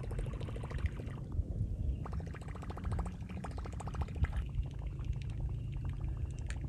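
A spinning reel being cranked, giving a fast, even ticking, over a low rumble of wind on the microphone. Water swishes as a hooked lake trout thrashes at the surface.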